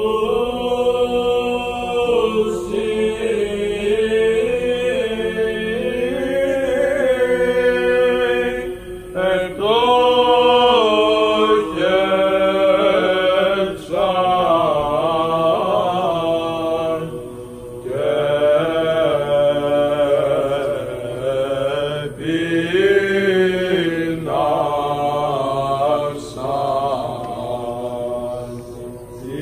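Greek Orthodox Byzantine chant sung for Vespers: a slow, ornamented vocal melody on long held notes, with short breaks between phrases.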